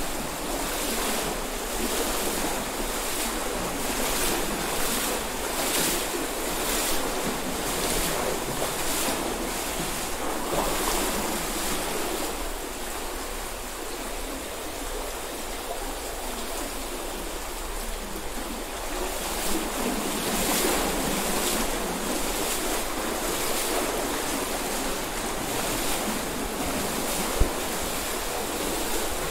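Stream water rushing through a narrow rock gorge, with splashes a little more than once a second as someone wades through knee-deep water; the splashing pauses midway, then resumes. A single sharp knock near the end.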